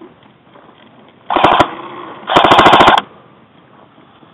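Airsoft gun firing two full-auto bursts: a short burst of about five shots, then, about a second later, a longer burst of about a dozen rapid shots.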